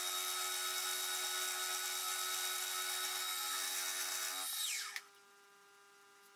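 Milling machine spindle running with a steady high whine while a finishing end mill cuts a slot in mild steel. About four and a half seconds in, the whine falls steeply in pitch as the spindle is switched off and spins down, leaving a faint hum. A short click follows near the end.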